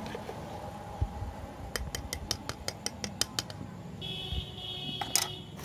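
Quick run of about ten sharp metallic clicks, like a utensil tapping on an aluminium bowl as masala is added to aloo kabli. Near the end comes a steady high tone lasting about a second and a half, with one loud click.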